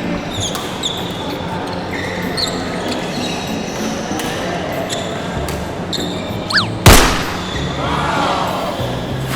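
Badminton rally in a sports hall: shoes squeaking briefly on the court floor several times, then a single loud, sharp racket hit about seven seconds in.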